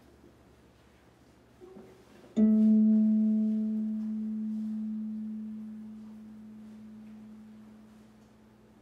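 A single low plucked string note, struck sharply and left to ring, fading slowly over about six seconds. A faint, softer note sounds just before it.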